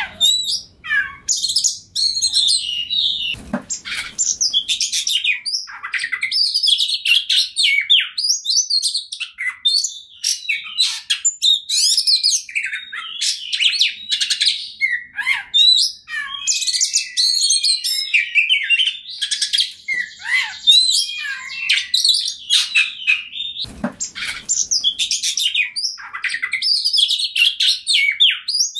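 Oriental magpie-robin singing a fast, unbroken run of varied whistles, chirps and trills. Two short low thumps, about three and a half seconds in and again near 24 seconds.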